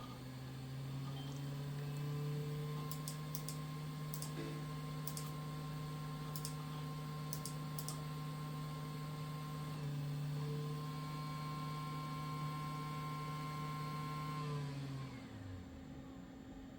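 CD-ROM drive spinning at speed with a steady hum and whine, the pitch dipping and recovering about ten seconds in, then spinning down with a falling pitch near the end. A few light clicks in the first half.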